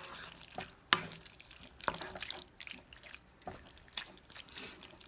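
Ground meat in tomato sauce being stirred in a pot: wet, squelching mixing with several sharp knocks of the stirring utensil against the pot, the loudest about a second in.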